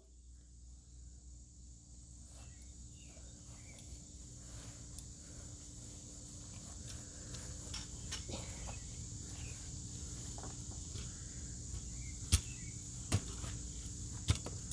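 Background room noise fading up, with a steady low hum and a high-pitched whine. Scattered light clicks and rustles run through it, with two sharper knocks about twelve and thirteen seconds in.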